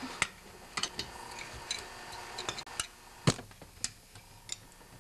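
Ratchet socket wrench tightening a small-engine flywheel nut: irregular metallic clicks and clinks, the loudest a little past three seconds in.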